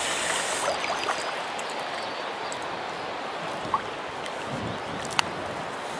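Shallow, clear stream running steadily over gravel and stones. Two brief sharp clicks, one a little past halfway and one near the end.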